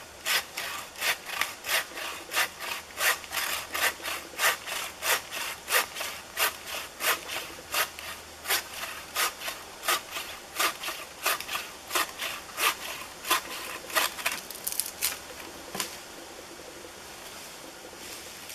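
Wooden-frame bucksaw cutting through a log by hand, in quick, even back-and-forth rasping strokes, roughly two to three a second. The strokes stop near the end.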